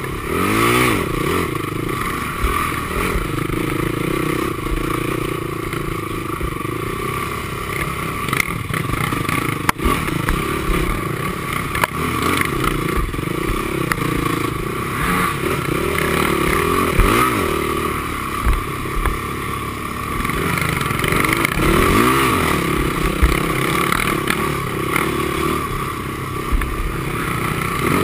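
Honda TRX450R quad's single-cylinder four-stroke engine under race load on a trail, revving up and falling back over and over as the rider works the throttle and gears. The chassis clatters and scrapes over the rough ground, with a few sharp knocks from about eight to twelve seconds in.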